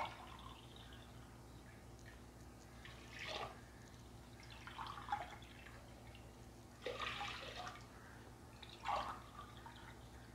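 Water poured a glassful at a time into a stainless steel pressure cooker holding washed semolina, heard as about four short, faint splashing pours.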